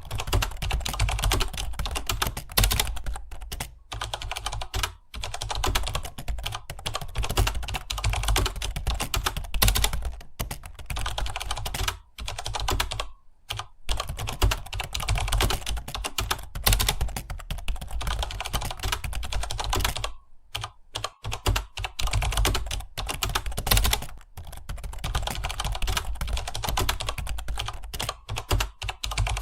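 Typing on a computer keyboard: a fast, continuous run of key clicks, with brief pauses a few times.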